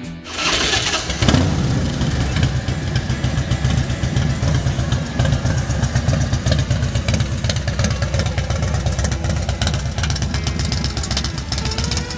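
American Ironhorse Outlaw chopper's 111 cubic inch V-twin engine running, its loud, rapid low exhaust beat coming in about a second in and holding steady through the chrome exhaust.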